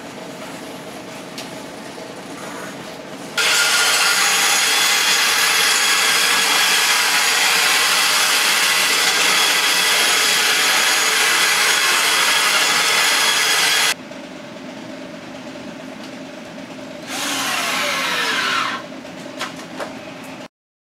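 Electric power saw running steadily for about ten seconds, cutting the plywood piece. A few seconds later a power tool runs again in a shorter burst, its pitch falling as it works.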